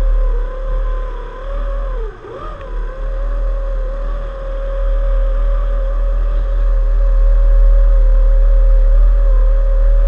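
Outboard motor of a homemade Glen-L Super Spartan hydroplane running at speed with a steady high-pitched whine; its pitch dips and comes back up about two seconds in. A deep rumble runs underneath.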